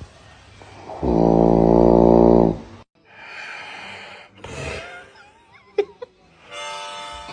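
One long, loud snore about a second in, lasting about a second and a half, with a deep buzzing pitch. It cuts off abruptly, and quieter mixed sounds with a few sharp clicks follow.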